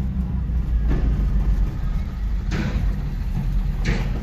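Subaru Sambar minitruck driving along, its small engine running with a steady low rumble. A few brief rushing swells come and go over it.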